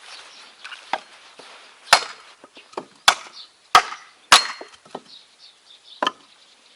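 Dry wooden boards knocking and clattering as they are handled for kindling: a run of irregular sharp wooden knocks, five of them loud, with quieter clatter between.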